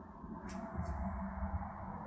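Quiet room noise with a low rumble, and two faint rustles about half a second and about a second in, from a handheld camera being moved.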